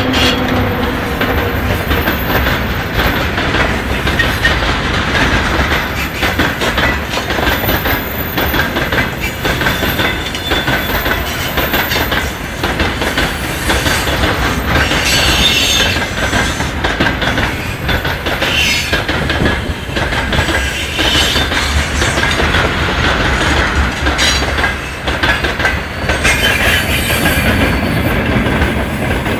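Freight train wagons rolling past, their wheels clattering steadily over the rail joints, with brief high wheel squeals a few times.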